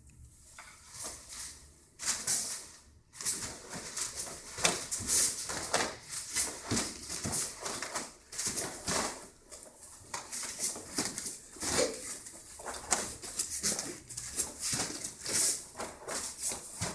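Pair of wooden tonfa whooshing through the air, with the karate gi snapping and bare feet shifting on the mats, during a kata. The whooshes come sharp and irregular, several a second, starting about two seconds in after a quieter opening.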